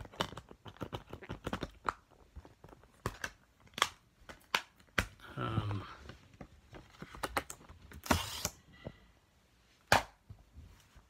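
A Blu-ray disc and its plastic case being handled: a string of sharp clicks and snaps, with a short scraping rustle about 8 seconds in and a last loud click near the end.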